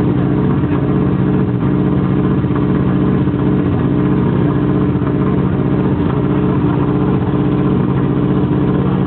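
Subaru Impreza WRC rally car's turbocharged flat-four boxer engine idling steadily while being warmed up, an even, fast low pulse with no revs.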